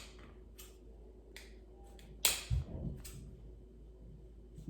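Kitchen scissors snipping through pita bread in several separate short cuts, with a louder snip and a dull thump about two and a half seconds in.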